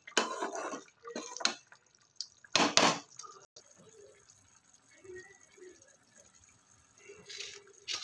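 A slotted metal spatula stirring and scraping thick spinach gravy in a steel kadai, in several wet, clattering bursts, the loudest about three seconds in. It then cuts to a much fainter stretch while oil heats in a small steel tadka ladle over a gas burner, with one short clatter near the end.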